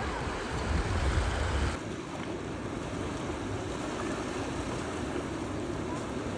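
Steady rushing outdoor noise of wind and surf, with a heavy low wind rumble on the microphone that drops off suddenly about two seconds in.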